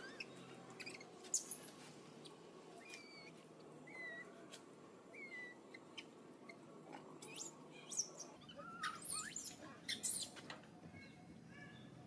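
Faint, short, high-pitched animal chirps and squeaks, some gliding in pitch, spaced out at first and coming thicker near the end, with scattered light clicks.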